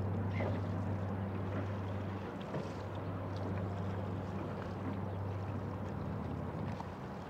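Steady low motor hum, dipping briefly about two seconds in, over an even haze of water and wind noise.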